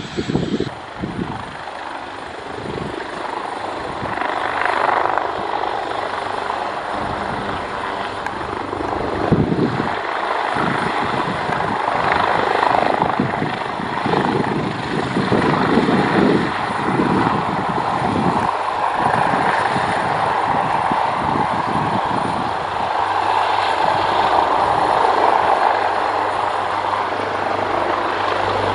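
Airliner engines running loud and steady as an aircraft passes close by, the roar building toward the end, with irregular low rumbling thumps underneath.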